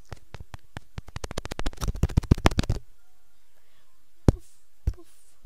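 Fingers tapping on a gaming headset's boom microphone: a fast run of sharp clicks that speeds up and grows louder for nearly three seconds, then stops. Three single taps follow, a little over half a second apart.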